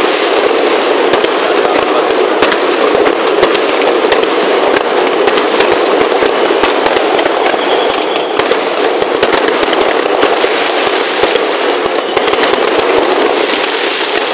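Fireworks going off: a dense, continuous crackle of many rapid pops and bangs, with two falling whistles about eight and eleven seconds in.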